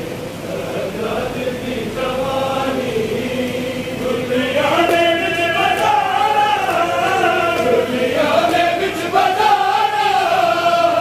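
A group of men chanting a Punjabi noha, a Shia lament for Muharram, in unison with a slow rising-and-falling melody; the chant grows louder about four and a half seconds in.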